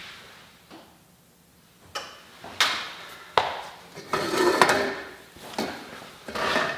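Irregular knocks, clicks and clatter of objects being handled, with a busier stretch of rattling about four seconds in.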